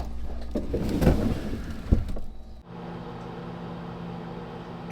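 A few knocks over low rumbling handling noise, then, about two and a half seconds in, a microwave oven starts running with a steady hum.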